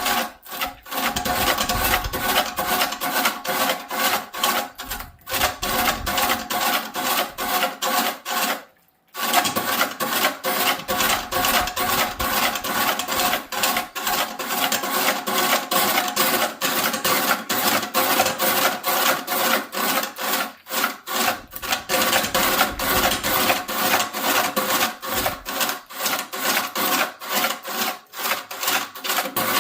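A tool working wood in fast, even, repeated strokes, like rasping or sawing, with a brief pause about nine seconds in.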